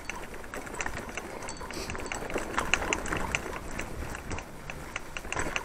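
Mountain bike riding over a rough, leaf-covered dirt trail: tyres on the ground and the bike rattling, with many irregular sharp clicks and knocks over a low rumble.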